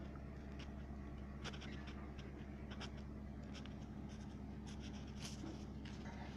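Irregular light clicks and scratchy taps over a steady low hum.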